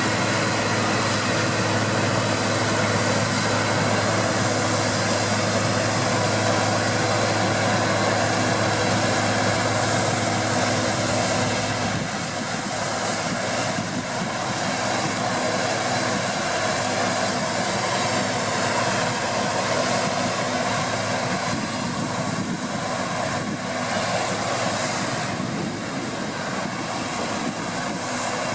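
Deutz-Fahr 6060 combine harvester running while harvesting wheat: a steady engine-and-machinery drone with several held tones. About twelve seconds in, a low hum drops out and the sound gets slightly quieter.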